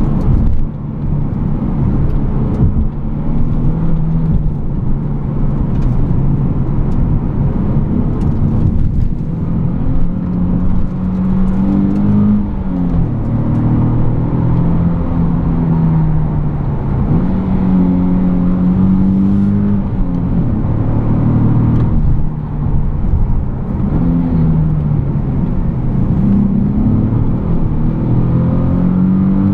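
Nissan 370Z Nismo's 3.7-litre V6 heard from inside the cabin while driving, its note climbing and dropping back several times as the revs rise and fall.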